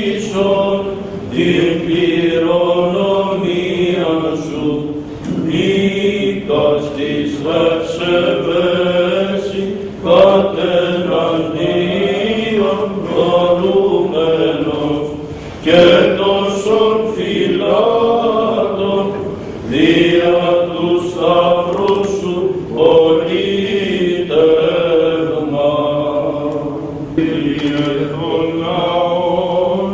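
Greek Orthodox Byzantine chant sung during an agiasmos, the blessing with holy water. The voices hold long, melismatic phrases, broken by brief breaths every few seconds.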